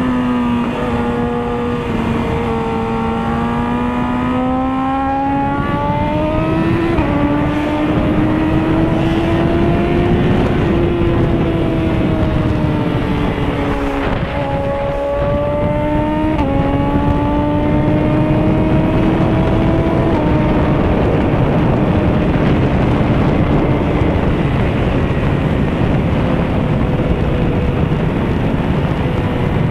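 Inline-four engine of a litre-class sport bike pulling on the move. The note climbs with the throttle and changes in sudden steps at gear changes, about seven, sixteen and twenty seconds in. Steady wind and road rush lies under it.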